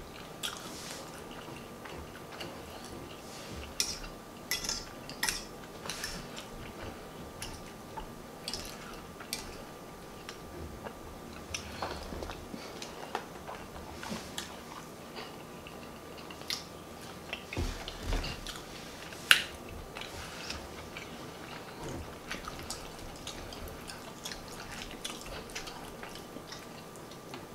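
Close-miked eating of smothered turkey wings and mashed potatoes: chewing and lip-smacking with many short, irregular clicks, and a fork now and then against the plate. One sharp click about two-thirds of the way through is the loudest sound.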